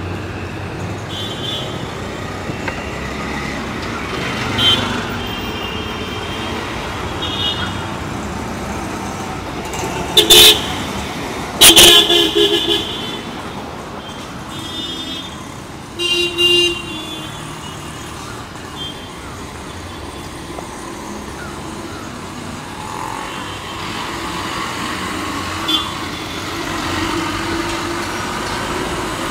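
Road traffic on a busy city street: a steady rumble of passing vehicles with frequent short horn honks, the loudest a pair about ten and twelve seconds in.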